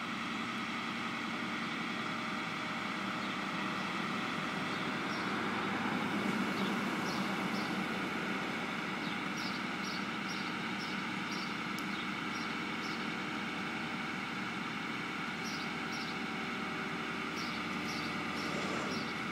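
Machinery engine running steadily, with short high chirps coming in clusters through the middle.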